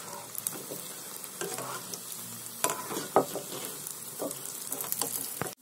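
Aloo cutlets deep-frying in hot oil with a steady sizzle, golden brown and nearly done. A few light clicks come from a wire skimmer knocking the kadai as the cutlets are turned and lifted out.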